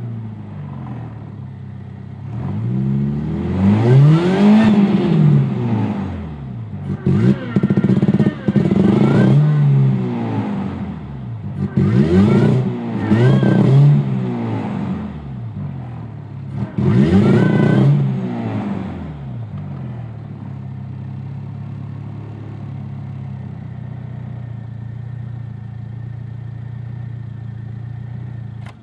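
VW 2.0 four-cylinder engine revved up and back down several times, then settling to a steady idle about two-thirds of the way through. The engine is misfiring on cylinders 1 and 4, which the owner thinks is a cracked ignition coil.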